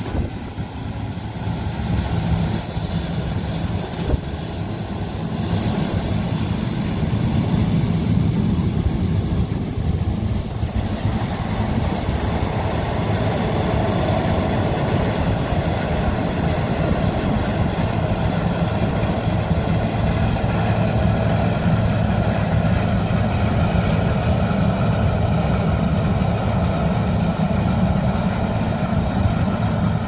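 New Holland CR8.90 twin-rotor combine harvesting corn: a steady drone from its diesel engine and threshing machinery. It grows louder over the first six seconds or so as the combine draws near, then holds steady.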